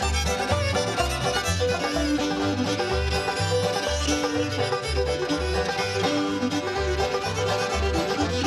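Old-time string band playing an instrumental tune: fiddle and banjo over guitar, with steady bass notes about twice a second.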